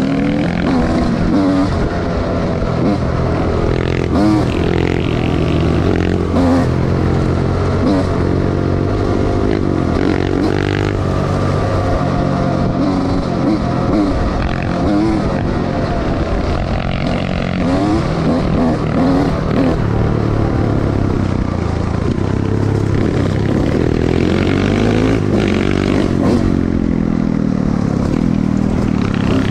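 Dirt bike engine running and revving up and down as it rides a rough dirt trail, its pitch rising and falling again and again.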